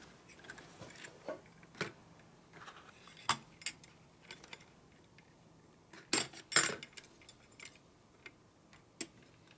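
Stainless steel wheel spokes clinking and ticking against each other and the hub as they are swung into place while a spoked wheel is laced. Scattered light metallic clicks, with the loudest pair a little past six seconds in.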